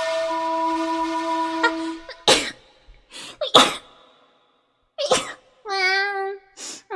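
A young woman sneezes several times in a row that she could not stop, the loudest about two seconds in and again about three and a half seconds in. The sneezes follow a steady held note of about two seconds, and there are brief voiced sounds near the end.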